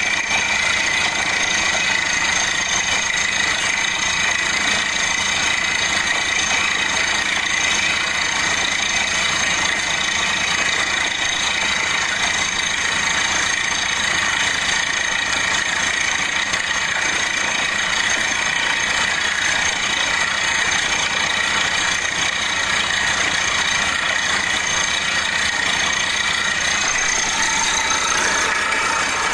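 Borewell drilling rig running steadily while its drill pipe turns into the ground: a continuous machine drone with steady high-pitched whining tones over it.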